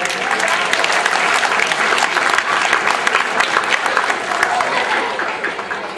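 Audience applauding, many hands clapping at once, easing off near the end.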